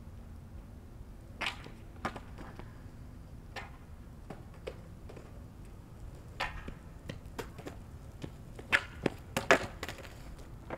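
Longboards rolling on asphalt, a steady low rumble of wheels, with scattered sharp clacks of boards and feet on the pavement and a loud cluster of clacks about nine seconds in as a rider steps off and the board rolls on alone.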